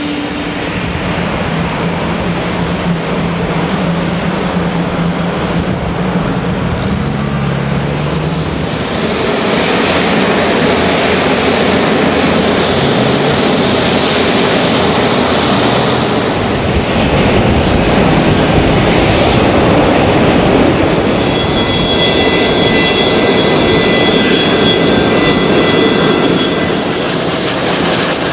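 Airliner jet engines running on an airport apron: a steady rushing noise with a low hum for the first eight seconds or so. It grows louder through the middle, and steady high whines come in during the last several seconds.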